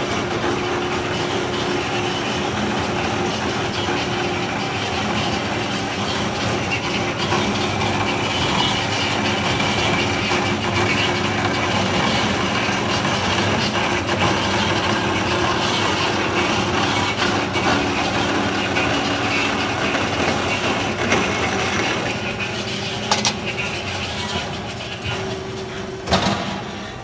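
Steady machinery running, with a hum under a loud hiss, easing off near the end with a few sharp knocks.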